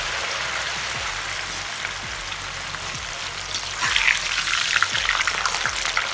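Boiled noodles dusted with flour deep-frying in hot oil: a steady sizzle that turns into louder, denser crackling about four seconds in, as a perforated skimmer is stirred through them.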